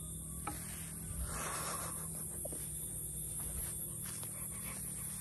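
Soft rustling and scraping of grass and soil being dug with a small hand tool, strongest about a second in, over a steady high-pitched drone of insects.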